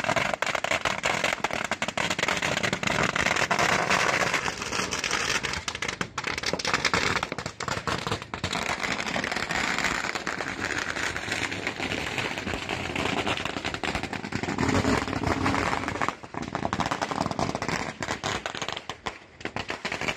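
Strings of firecrackers going off in a rapid, continuous crackle of bangs, loudest in the first four seconds or so and carrying on somewhat less densely after that.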